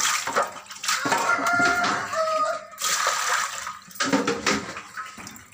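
Water splashing and sloshing in a steel basin as fish pieces are rinsed clean.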